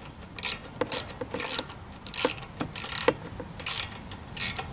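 Ratchet wrench clicking in short, irregular bursts while a 12 mm starter mounting bolt is being loosened.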